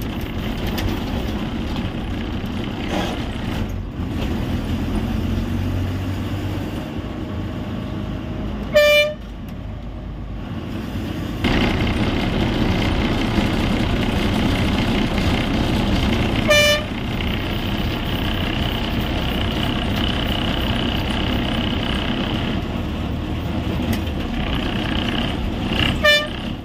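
APSRTC express bus running through town, its engine and road noise heard from inside, with three short horn honks: the first and loudest about a third of the way in, another about two-thirds in, the last at the very end. The running noise drops briefly after the first honk, then comes back louder.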